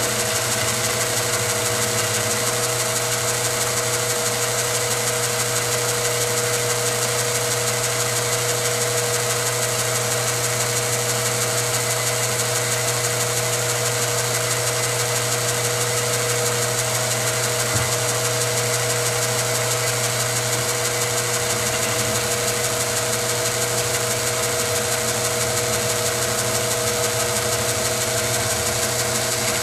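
Milling machine spindle running with an end mill cutting a slot through the wall of a metal shotgun-brake tube: a steady mechanical hum with two constant whining tones, unchanged throughout apart from one brief click about 18 seconds in.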